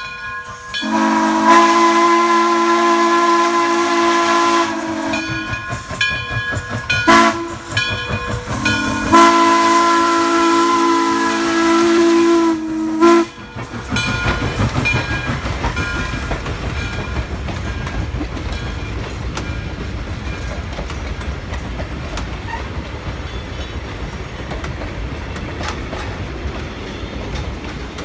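Frisco 1630, a 2-10-0 Decapod steam locomotive, sounds its chord steam whistle: a long blast, a brief one about seven seconds in, and a final long blast that stops about thirteen seconds in. After that the engine, its tender and its passenger cars pass close by with a steady rumble and the clickety-clack of wheels over rail joints.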